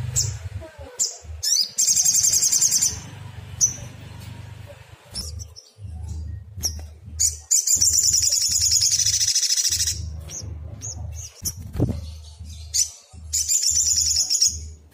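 Sogon (sogok ontong), a sunbird-family songbird, calling in fast, high trilling bursts, three long ones about two seconds in, in the middle and near the end, between short sharp chirps. Used as a lure call meant to set other sogon singing. A low hum comes and goes underneath.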